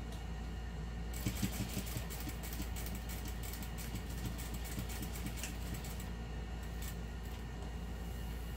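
Juki sewing machine stitching through pinned fabric layers: a fast run of needle strokes starts about a second in and stops around six seconds, over a steady low hum, followed by a few single clicks.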